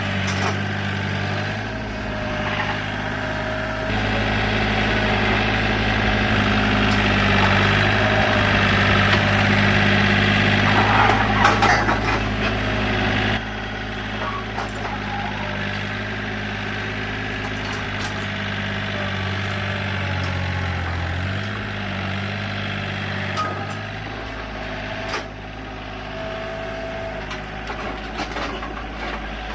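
An engine running steadily at a low hum, its sound changing abruptly a few times where the footage is cut.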